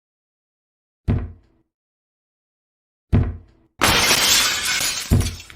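Something being smashed: two heavy blows a couple of seconds apart, then a long crash of shattering and breaking pieces, with another blow landing near the end.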